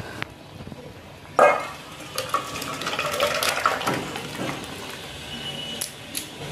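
A metal kadai of curry being emptied into a steel bowl: one loud metal clank about a second and a half in, then a few seconds of scraping and clatter of metal on metal as the curry is tipped and scraped out.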